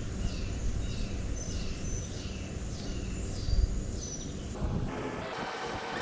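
A bird calling over and over outdoors, short falling chirps about twice a second, over a steady low rumble. About four and a half seconds in the sound changes abruptly to a broader hiss.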